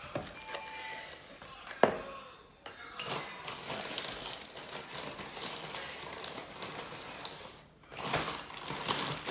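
Wire whisk stirring flour into an egg-and-oil base in a bowl for bread dough: a run of scraping and clicking against the bowl, with one sharp knock about two seconds in and two brief pauses.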